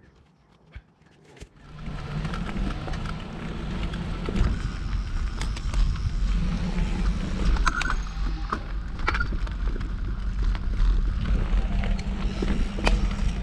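Mountain bike rolling along a rough dirt trail: wind rushing over the microphone and a steady rumble of tyres and frame, with sharp clicks and knocks from the terrain. It starts about two seconds in after a short quiet spell.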